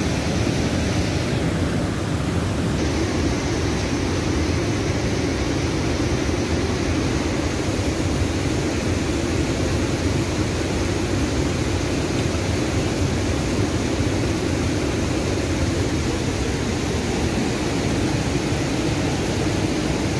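Fast mountain river rushing over rapids: a steady, loud roar of water.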